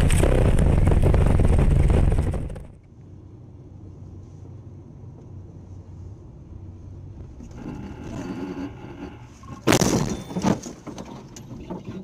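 Loud, continuous crash noise of a vehicle accident that cuts off about two and a half seconds in. Then the quiet road noise of a car driving, heard from inside the cabin, until about ten seconds in a sudden loud collision bang, a second bang half a second later, and scraping as the car goes into the snowbank.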